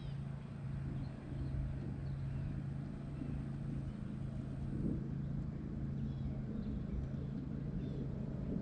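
A motor or engine running with a steady low hum, its pitch unchanging throughout.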